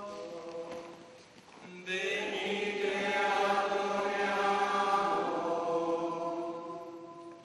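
Voices singing a slow liturgical chant with long held notes. One phrase dies away about a second in, the next enters louder just before two seconds, and it fades near the end.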